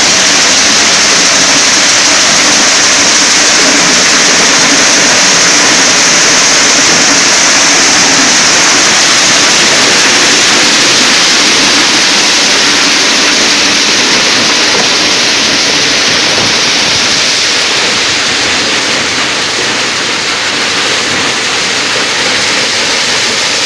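Sonalika maize sheller running while shelling corn cobs: a loud, steady rushing noise with no distinct beats, easing slightly about two-thirds of the way through.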